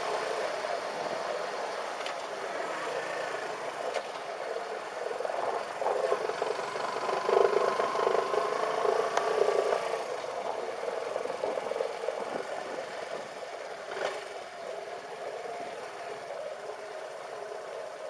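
Motorcycle engine running as the bike rides along, with road and wind noise; it gets louder for a few seconds in the middle, then eases off.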